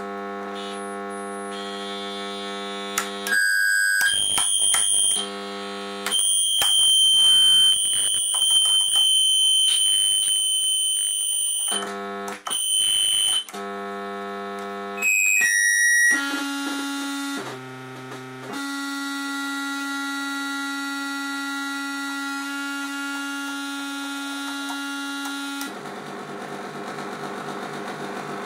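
FusoElektronique NDR-113 noise machine, built around the SN76477 sound-generator chip, being played. A buzzing drone switches abruptly to loud, high-pitched whistling tones and back several times. It then settles into a lower steady hum and, near the end, a rapidly pulsing buzz.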